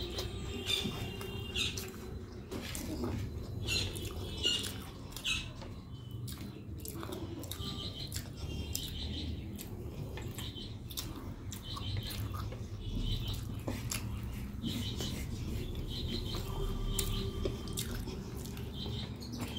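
Birds chirping in short repeated calls, with soft eating sounds close by: fingers mixing rice on a plate, small clicks, and chewing. A steady low hum runs underneath.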